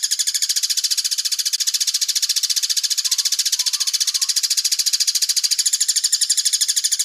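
Sogon bird song from a masteran (song-training) recording: a rapid, evenly pulsed high trill of about fourteen notes a second that runs on without a break, the 'tembak' trill style.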